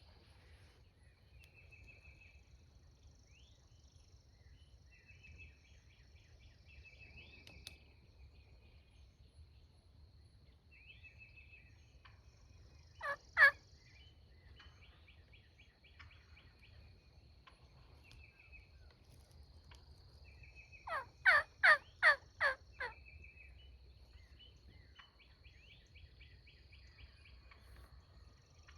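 Wild turkey calling: two loud notes about halfway through, then a quick run of about six more near the end, with a songbird's short trills repeating and insects buzzing steadily underneath.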